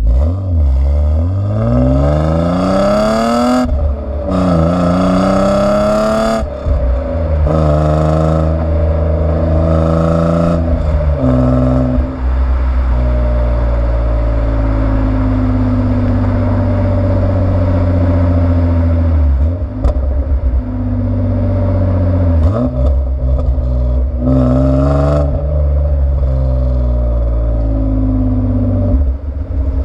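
BMW E36 325i's M50B25 straight-six with its stock exhaust and an old rear muffler, pulling hard: the pitch climbs twice in quick succession with short breaks at the gear changes, then the engine settles to a steady cruise, with shorter rises and drops later.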